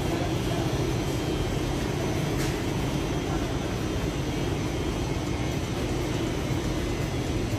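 Steady low rumble and hiss of supermarket background noise, with a light click about two and a half seconds in.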